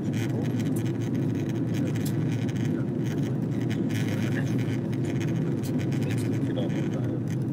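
Steady airliner cabin noise from the engines and airflow during the descent for landing, with a few faint scratchy clicks over it.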